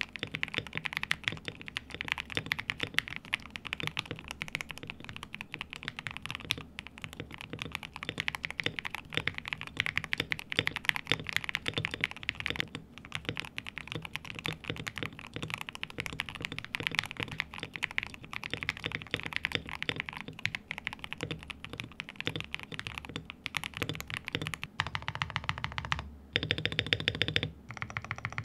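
Fast, continuous typing on a KBD67 Lite R3 mechanical keyboard fitted with lubed linear switches, Tecsee Carrots and C3 Tangerines in turn. Near the end the keystrokes come in a denser, faster run.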